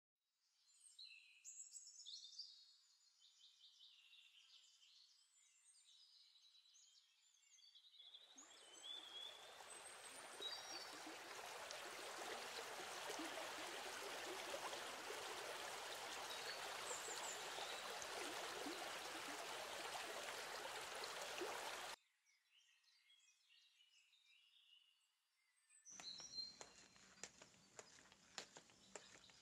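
Faint birds chirping. Then a steady rushing noise like running water swells up, with birds still calling over it, and cuts off suddenly after about fourteen seconds. Near the end comes a run of light knocks, like footsteps on a slatted floor.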